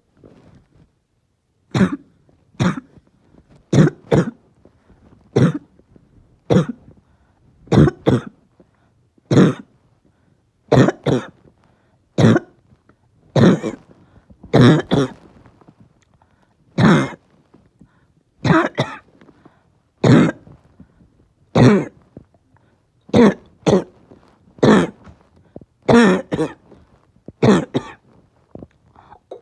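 A person with a harsh, barking cough, coughing again and again, roughly once a second and often in quick pairs. It is a painful chest cough.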